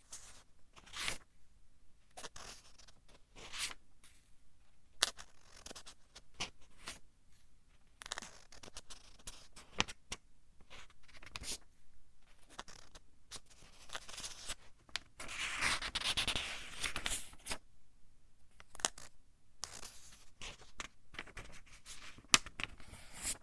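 Pages of a thin-paper book being turned one after another: irregular papery rustles and crisp snaps as each page flips over, with a longer, louder rustle a little past the middle.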